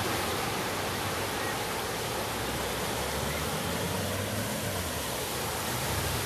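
Steady rushing wash of floodwater flowing across a flooded street, with the low rumble of cars driving through the deep water.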